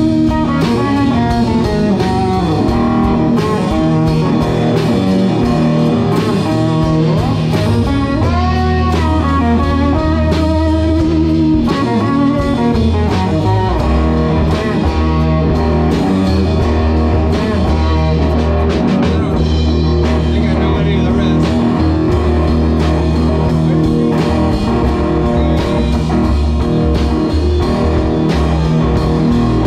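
Live rock band jamming instrumentally: electric guitars over a steady drum-kit beat and low sustained bass notes, with lead guitar notes bent up and down.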